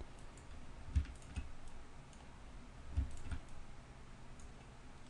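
A few faint computer mouse clicks, in two pairs about two seconds apart, as the heal tool samples and paints skin areas.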